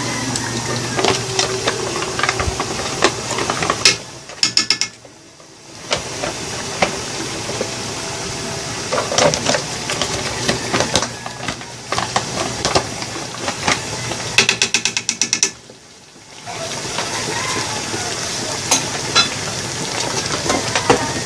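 Foil sauce pouch crinkling and crackling as it is squeezed and emptied over the pot, over a steady hiss. Twice a quick run of rapid clicking comes, and right after each the hiss drops out for about a second.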